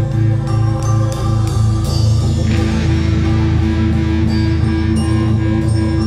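Background music with sustained tones and a steady low pulse.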